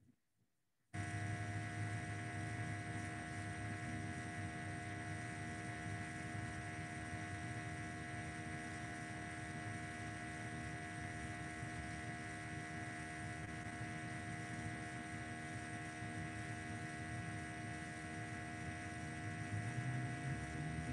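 Steady electrical hum with hiss and several constant tones, cutting in abruptly about a second in after dead silence.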